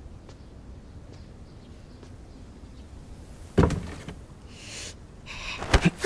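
Quiet room tone broken by a sudden thump about three and a half seconds in, then rustling and a few sharp hits near the end as a sleeper is grabbed in a brief scuffle.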